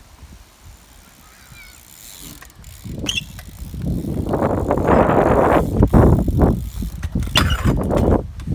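A bicycle being ridden close by: a rough rolling and scraping noise that comes in about three seconds in and stays loud, with a few sharp clicks.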